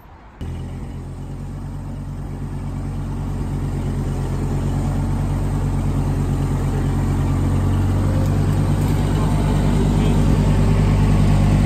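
Engine of a 1940s forklift running as it raises a load on its mast. It comes in abruptly about half a second in and grows steadily louder.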